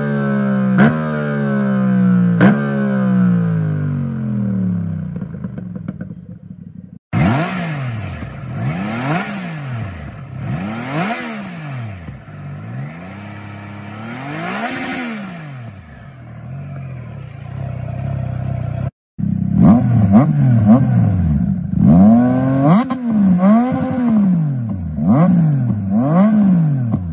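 Three motorcycle exhaust recordings in turn. First, a Yamaha Tracer 7's parallel-twin engine through an Akrapovic exhaust, blipped a few times with the revs falling away. Then, after a brief cut, a Triumph Tiger Sport 660's inline triple on its stock exhaust, revved in repeated rising-and-falling blips, and after another short cut near the last third, a Triumph Trident 660's triple through a Yoshimura exhaust, louder, with quicker rev blips.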